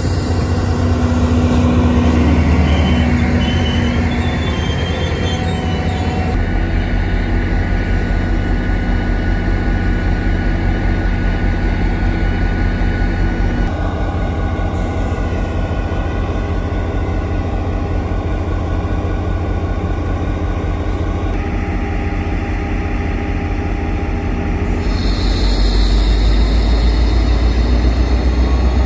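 Diesel locomotive running close by behind a passenger train, its engine drone steady with a few shifts in pitch, getting louder near the end as the engine revs up.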